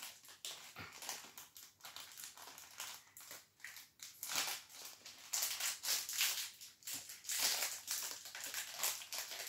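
Thin plastic toy packaging crinkling and crackling unevenly as a child works open the small packet holding a doll's bag, pulling at it with her fingers and teeth.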